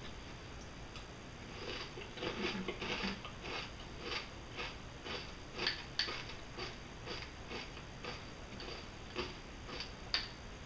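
A person chewing a mouthful of crunchy breakfast cereal in milk, with steady crunches about twice a second. A few sharp clicks of a spoon against a glass bowl come through about halfway through and near the end.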